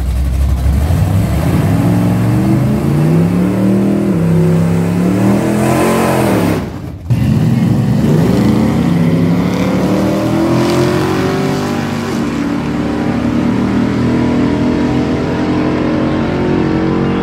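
Two drag vehicles, among them a 1989 Dodge D150 pickup with a 440 big-block V8, launching side by side and accelerating down the strip. The engines rumble low on the line, then climb in pitch through the gears, dropping back at a shift about four seconds in. The sound breaks briefly about seven seconds in.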